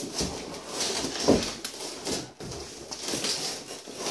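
Large cardboard box being handled: cardboard rustling and scraping with a few dull knocks.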